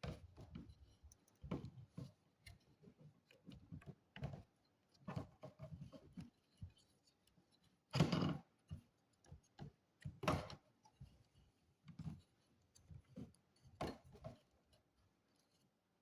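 Irregular clicks, taps and knocks of hands working on an all-in-one PC's plastic and metal parts, with two louder knocks about halfway through.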